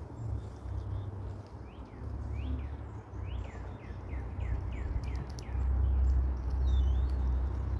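Wind buffeting the microphone with a low rumble that grows stronger toward the end. In the middle comes a quick run of about eight short, high, falling chirps.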